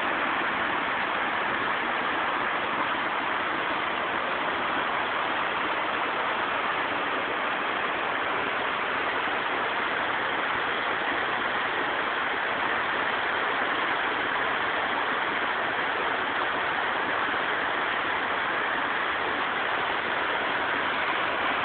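Steady rush of river water flowing over rapids, an even, unbroken roar.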